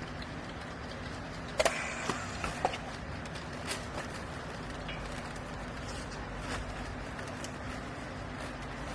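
Hydraulic garment compression baler's power unit humming steadily, with a few sharp knocks between one and a half and three seconds in.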